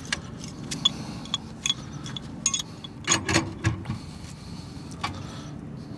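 Scattered metallic clicks and clinks of a pipe wrench being set on a gas valve and turned to thread it onto the gas pipe, with a cluster of louder knocks about three seconds in.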